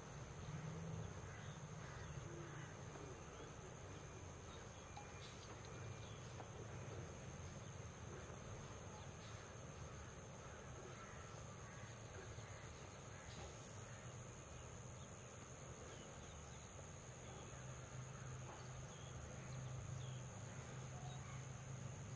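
Faint outdoor field ambience: a steady high-pitched insect drone over a low background rumble, with scattered short bird calls.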